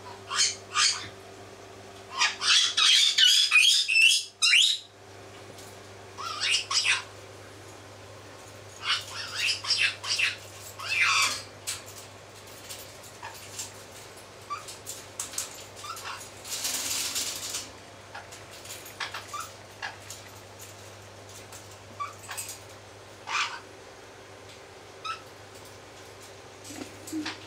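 Short, high-pitched animal calls like chirps or squeaks, coming in clusters with scattered single calls between, over a steady low hum. There is a brief hissing noise partway through.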